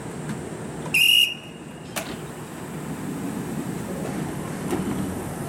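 A single short, shrill blast of a railway departure whistle about a second in, then a sharp click about a second later, over the steady hum of a stopped electric train.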